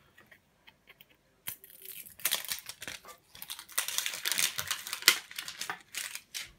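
Plastic wrapping crinkling and tearing, with many small sharp clicks, as a metal trading-card ball tin is unwrapped and opened. It is sparse at first and becomes a dense crackle after about a second and a half.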